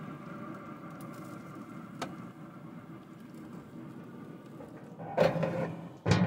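Steady hum of a running Expert Grill pellet grill with its lid open, with a single click about two seconds in and two short, louder clatters near the end.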